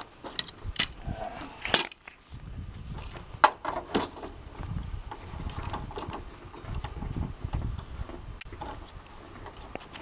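Steel bar clamp clicking and knocking as it is slid along its bar and tightened onto a steamed Douglas fir board bent over a form: a handful of sharp metal clicks, the loudest in the first few seconds. A low rumbling noise runs through the middle.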